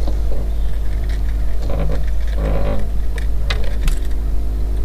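Steady low hum of the boat's motor, with scattered small clicks and rattles of a plastic tackle box and fishing gear being handled, most of them in the middle of the stretch.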